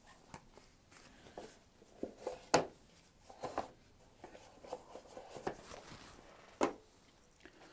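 Handling noise of pipes and their packaging being picked up and set down on a tabletop: an irregular run of light knocks, taps and rustles, with two sharper knocks about two and a half seconds and six and a half seconds in.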